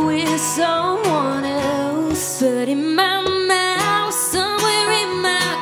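A woman singing a slow country song with wavering held notes, accompanied by a plucked banjo and an acoustic guitar.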